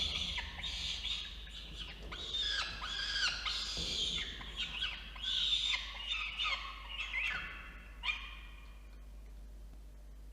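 Peregrine falcon chicks giving shrill, rapidly repeated begging calls while being fed. Many short calls that drop in pitch overlap for about eight seconds, then the calling dies away near the end.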